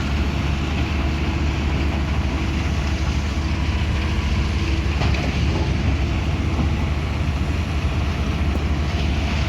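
Diesel engine of a heavy earthmoving machine running steadily, a low even drone with no change in speed.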